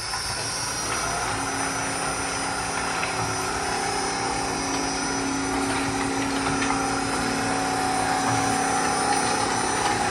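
Motorized decoiler's variable-frequency-drive electric motor and drive running steadily in automatic mode, turning the coil, with an even whine over the mechanical running noise.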